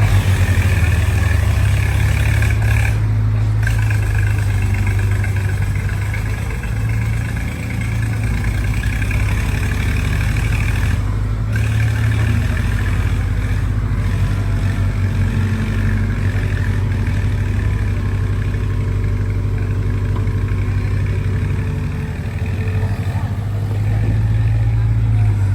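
Heavy diesel engines of a backhoe loader and tractor running steadily, with a deep hum and a constant higher whine that drops out briefly twice.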